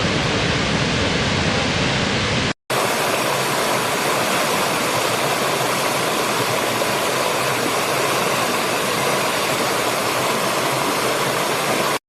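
Steady rush of a waterfall. It cuts out for a split second about two and a half seconds in, then resumes with less bass, a brighter hiss and a faint steady tone, and stops abruptly near the end.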